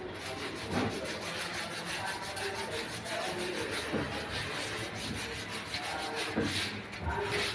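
Continuous rasping and rubbing as a curtain is worked along its rod at the top of a stepladder, with a few light knocks.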